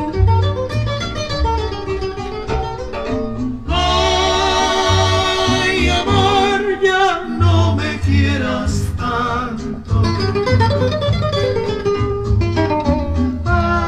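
A Spanish-language romantic song with guitar and bass playing from a vinyl record through a 300B single-ended tube amplifier and speakers. The passage has plucked guitar notes under wavering held melody notes.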